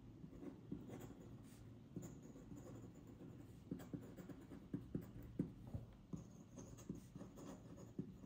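Metal nib of a feather quill dip pen scratching on paper while words are written, in faint, irregular strokes that come thicker a little past the middle.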